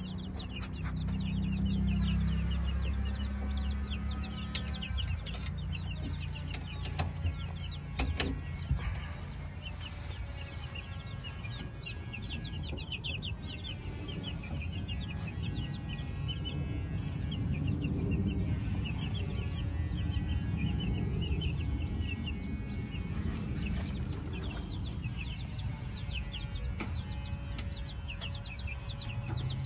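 A flock of young chickens peeping and cheeping continuously, many short high calls a second. A few sharp knocks come about a quarter of the way in.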